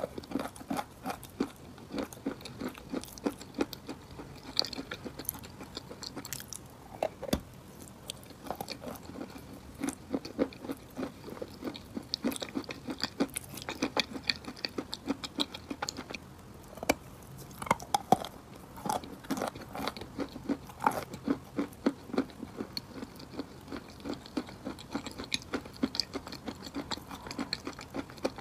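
A person chewing a mouthful of wet chalk: a dense, uneven run of small gritty crunches throughout.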